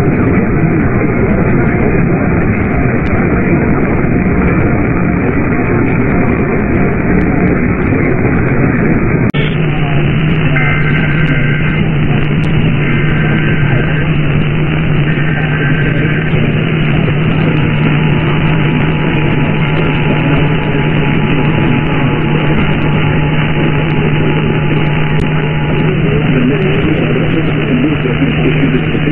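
Loud, steady radio static from a receiver with no broadcast audio. A low hum joins it about nine seconds in, and a few faint short tones come and go soon after.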